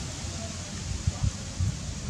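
Wind rumbling on the microphone, with faint rustling.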